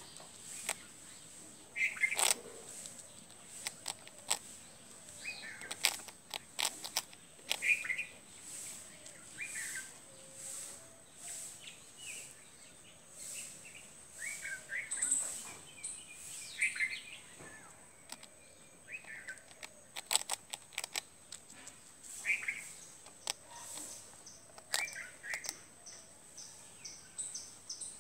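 Squirrel crunching hard toast, a run of sharp irregular crunches and clicks, while a bird gives short chirps every two to three seconds.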